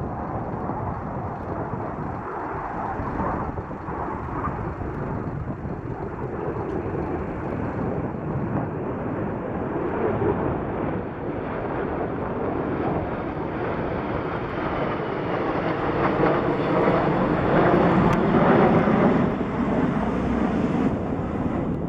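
Airbus A310 MRTT tanker and four escorting jet fighters flying over in formation: steady jet engine noise that grows louder as they come overhead, loudest about three-quarters of the way through, then eases a little.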